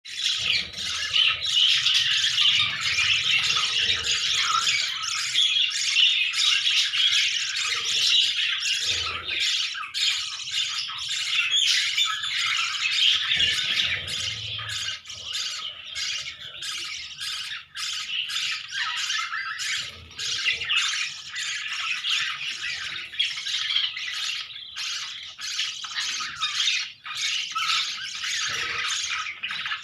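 Budgerigars calling continuously, a dense stream of short chirps and chatter with no breaks.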